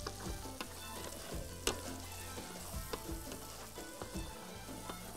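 Spiced potato stuffing sizzling in an aluminium pot as it is stirred with a wooden spoon and a metal utensil. Repeated clicks and scrapes of the utensils against the pot, with one louder knock about a second and a half in.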